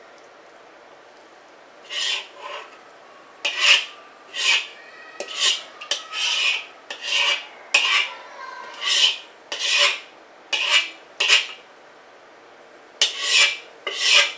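Metal wok ladle scraping the inside of a wok, about fifteen short rasping strokes in quick succession starting about two seconds in, with a brief pause before the last two, as curry noodles and sauce are scraped out onto a plate.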